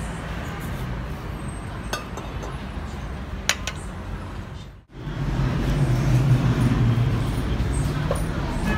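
A couple of light clinks of a utensil against a glass dessert bowl over a steady background hum. After an abrupt cut about five seconds in, a louder low rumble of street traffic.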